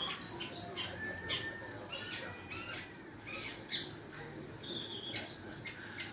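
Long-tailed shrike (cendet) practising its song: a rapid, jumbled run of short harsh squawks and chirps mixed with brief whistled notes.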